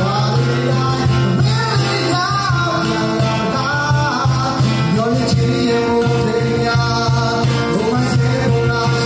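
A live acoustic cover of a Burmese pop song: a man sings into a microphone over a strummed acoustic guitar, with a cajón keeping the beat.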